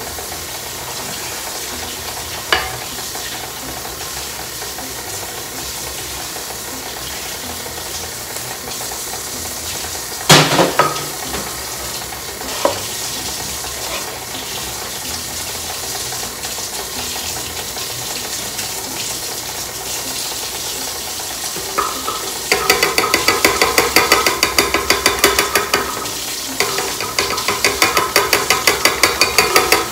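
A spoon stirring and scraping in a mixing bowl of cookie dough. A steady hiss with a few utensil knocks runs under it, and about two-thirds of the way in the stirring turns into fast, loud rhythmic strokes, several a second, with one short pause.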